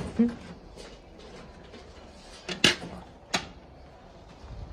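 Sharp wooden and metal knocks as wire-mesh ferret hutch lids and a galvanized metal feed bucket are handled: a few knocks right at the start, then two louder ones about two and a half and three and a half seconds in.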